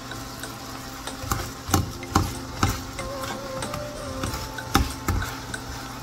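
A wooden spatula taps and scrapes against a nonstick frying pan as a shredded-potato pancake fries, over a steady low hum and a light frying sizzle. There are about six sharp knocks, the loudest around two seconds in.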